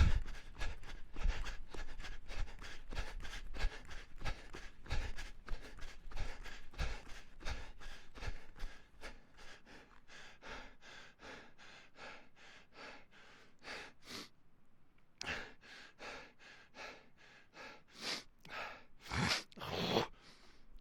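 A person panting hard and rhythmically while running, about three quick breaths a second, with low thuds under the breathing for the first several seconds. The breathing then slows into fewer, deeper breaths, with a few long, loud ones near the end, as of catching breath.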